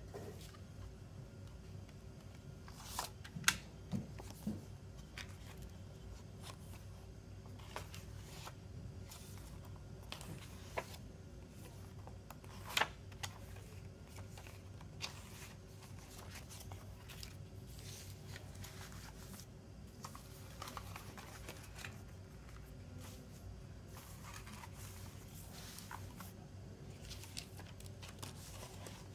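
CD jewel cases and a glossy photo booklet handled by hand: scattered paper rustles and light plastic clicks, with a few sharper clicks a few seconds in and about halfway through, over a faint steady hum.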